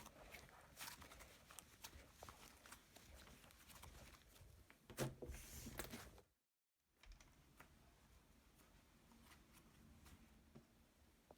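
Faint sticky clicks and crackles of slime being pressed and stretched by hand, a little louder about five seconds in, then cut off by a moment of dead silence before the faint clicking resumes.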